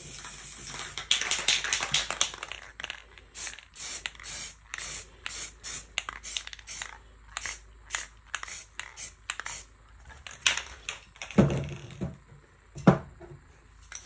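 Aerosol spray paint can spraying: a steady hiss for the first few seconds, then a long run of short spurts, about two a second. Two dull knocks come near the end.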